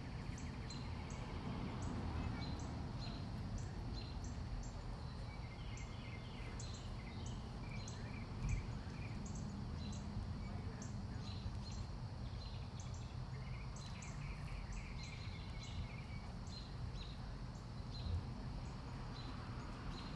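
Outdoor garden ambience: birds chirping over a steady low rumble, with a high short chirp repeating about twice a second. Two brief knocks stand out, about eight and eighteen seconds in.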